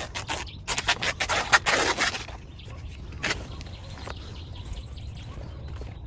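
Banana leaves rustling and crackling as they are cut with a sickle and handled. A dense run of crackles comes in the first two seconds, one more sharp rustle follows about a second later, and then it goes quieter.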